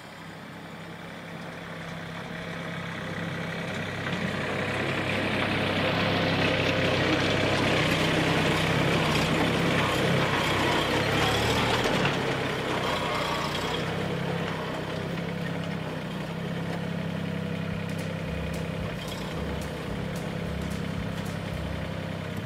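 Mahindra 1626 compact tractor's three-cylinder diesel engine running. It grows louder and harsher over the first few seconds, is strongest through the middle, then eases to a steadier, lower run.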